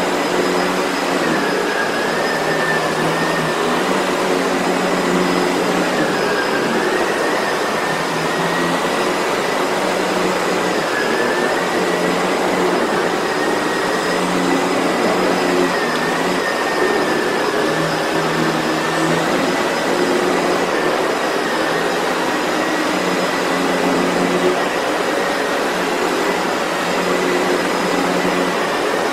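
Sebo Felix upright vacuum cleaner running steadily while vacuuming, its high motor whine dipping briefly in pitch every few seconds.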